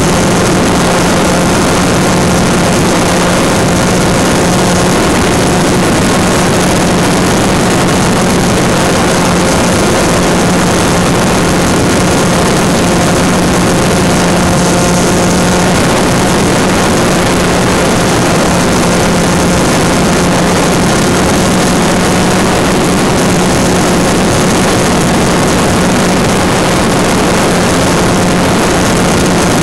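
Turnigy Park 250 2200 kV brushless electric motor spinning a 5 x 4.3 propeller at steady cruise, a loud even drone with a steady hum and rushing air noise over the on-board camera's microphone.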